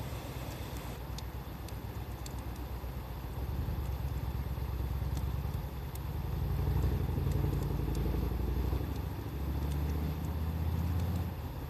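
Low, steady motor-engine rumble, louder from about the middle on, over scattered sharp pops and crackles of a wood fire.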